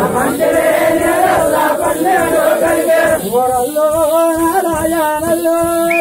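A group of voices singing a chant together, a tappeta gullu folk song, with crowd noise; from about halfway the voices hold long steady notes.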